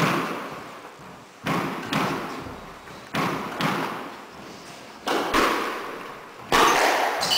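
Squash ball being struck: sharp thwacks of racket on ball and ball on the walls, echoing around the enclosed court. Four pairs of strikes come about every one and a half to two seconds, the last and loudest as a serve is hit near the end.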